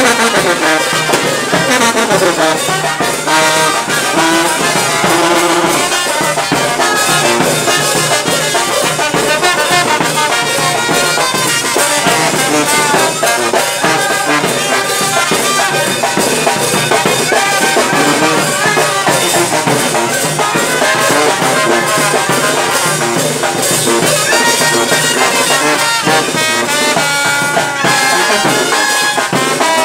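Street brass band playing: trombones, trumpets and a sousaphone over a bass drum, snare drum and clash cymbals.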